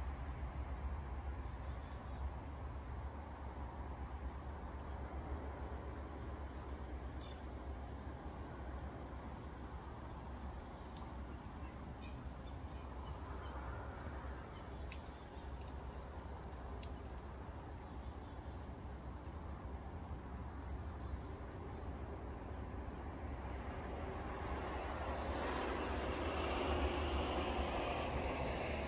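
Short high chirps repeating about two or three times a second, typical of a small bird, over a low steady rumble. A rush of noise swells near the end.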